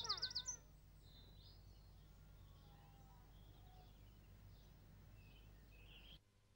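Faint outdoor background with a few faint bird chirps, opened by a quick high warbling trill in the first half second. The background cuts off abruptly just before the end.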